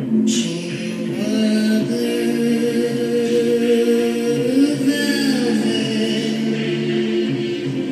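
Slow vocal music: a woman's voice singing long, held notes over soft backing music.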